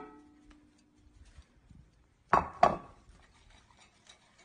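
Two sharp clinks about a third of a second apart, a little past halfway: a dish or glass being knocked or set down.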